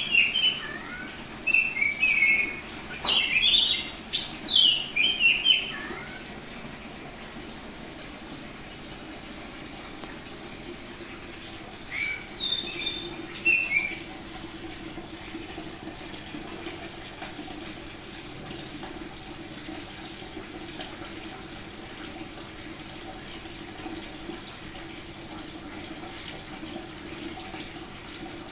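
Oriental magpie-robin (kacer) singing loud phrases of quick whistles and warbles through the first six seconds, with a short burst again about twelve seconds in. Under and after the song runs a steady hiss with a low hum.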